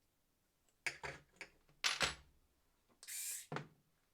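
Screwdriver bits being handled: a few light clicks and knocks of small hard objects, with a short scrape about three seconds in.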